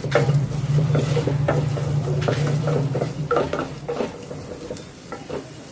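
Wooden spatula stirring and scraping goat spleen frying with chilli powder in the bottom of a pressure cooker, in quick irregular strokes. A steady low hum underneath stops about three seconds in.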